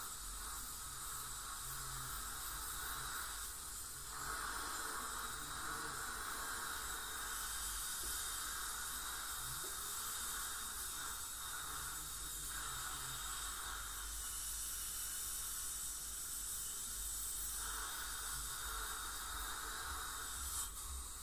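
Ultrasonic dental scaler with its water spray and the dental suction running during a teeth cleaning: a steady hiss that swells and fades in stretches of a few seconds as the tip works along the teeth.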